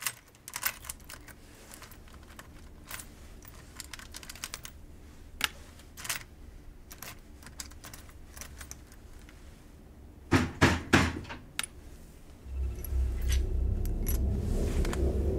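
Title-sequence sound effects: scattered sharp clicks and ticks, with a louder cluster of clicks about ten seconds in. A low rumbling drone starts near the end.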